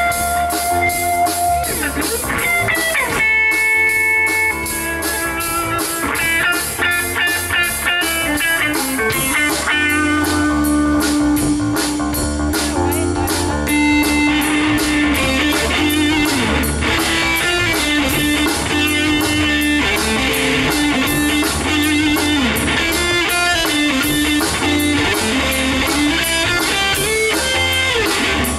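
Live rock band playing an instrumental stretch: an electric guitar lead line, with notes that move and some that are held long, over drums and a second guitar.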